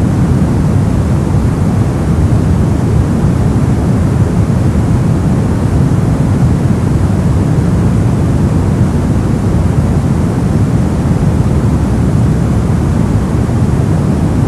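Brown noise: a steady, loud, deep rumbling hiss with most of its energy in the bass, falling away toward the treble, unchanging throughout.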